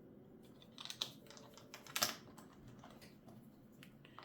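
Plastic LEGO bricks clicking as they are handled and pressed together: a small cluster of sharp clicks about a second in, and another about two seconds in.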